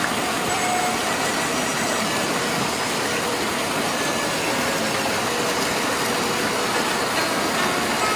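Steady heavy rain: a dense, even hiss with no breaks.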